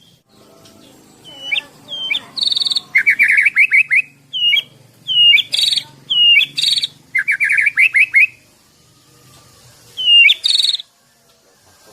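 White-rumped shama (Medan murai batu) singing loudly in separate phrases of hooked whistles, buzzy notes and two fast rattling runs of rapid notes, with short pauses between phrases. This is its varied song, full of phrases learned from other birds.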